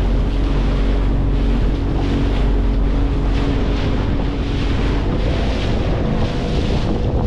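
Small fishing boat's engine running at speed, its steady drone mixed with water rushing in the wake and wind buffeting the microphone. The engine note rises slightly about five seconds in.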